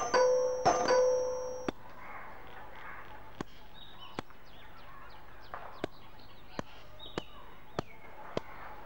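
A bell is struck twice and rings clearly, then cuts off short after about a second and a half. Afterwards, over faint bird chirps, there are sharp taps of footsteps at uneven intervals, about one every second.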